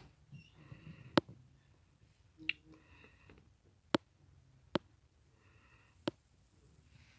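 Five sharp clicks spaced irregularly a second or so apart over a quiet room, the first the loudest, with faint high-pitched sounds between them.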